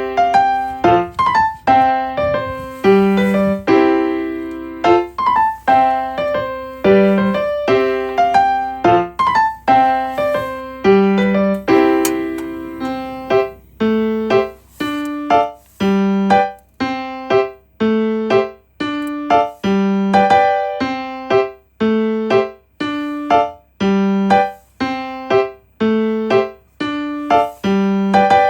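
Background piano music: a gentle, steady melody of struck, decaying notes, about two a second.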